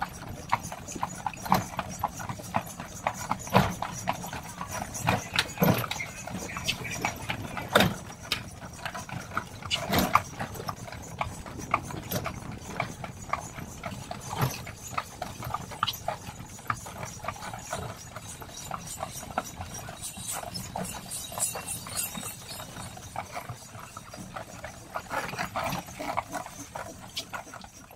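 Horse's hooves clip-clopping as it pulls a cidomo horse cart, a steady run of sharp hoofbeats several a second, some striking louder than others.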